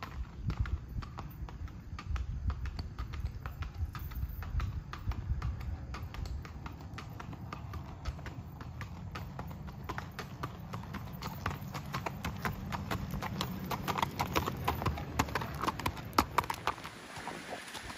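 A ridden Missouri Fox Trotter gelding's hooves clopping on a paved driveway in a steady rhythm, louder and sharper near the end as the horse comes close.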